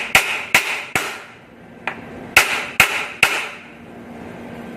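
Iron hammer striking the metal chair mechanism plate around an office chair's gas lift cylinder to knock the cylinder loose: sharp metallic blows with a short ring, three quick ones, a faint tap, then three more.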